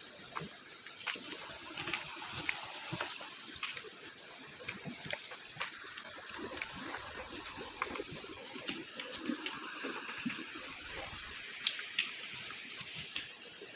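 Water running and trickling steadily, with scattered small clicks and knocks throughout.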